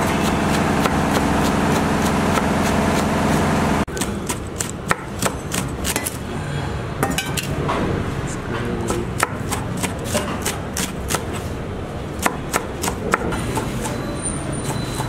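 Kitchen knife chopping green chillies and onion on a cutting board: sharp knocks, a few a second and irregular. Before that, for the first few seconds, a steady din of engine noise and voices, which cuts off suddenly about four seconds in.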